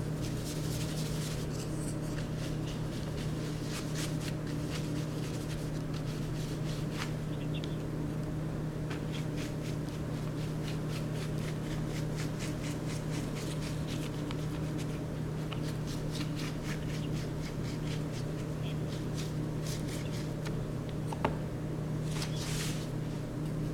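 Paint being scrubbed and scraped around on a surface: many short scratchy strokes, some in quick runs, over a steady low hum, with one sharper click about 21 seconds in.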